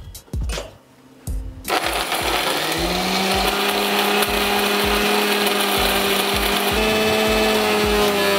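Electric mixer grinder switched on about two seconds in. Its motor whine climbs to a steady pitch within a second and holds, loud and steady, as it grinds fresh herbs and green chillies into a wet green paste.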